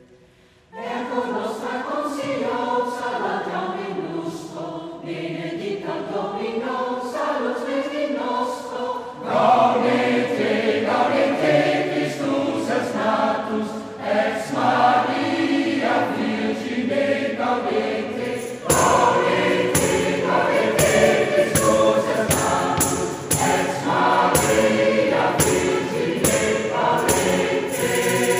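Mixed choir of men's and women's voices singing in harmony, coming in after a brief pause at the start, growing louder about ten seconds in and fuller again about two-thirds of the way through.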